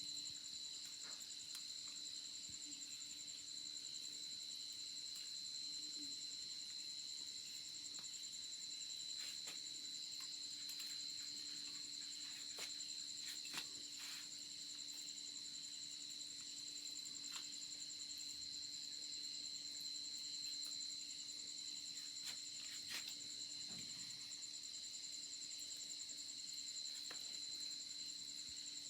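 Steady high-pitched insect chorus, crickets trilling without a break, with scattered faint clicks.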